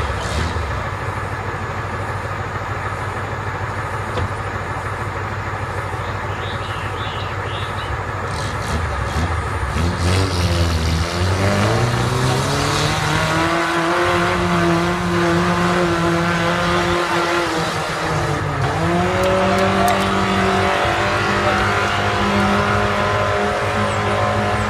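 Engine of a small off-road 4x4 revving hard as it climbs a muddy, rutted slope. About halfway through, the engine pitch rises and holds high, dips once briefly, then climbs again and stays up.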